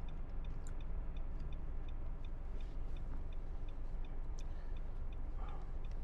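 Car turn-signal indicator ticking evenly, about three clicks a second, over the low hum of the car idling in stopped traffic, heard inside the cabin.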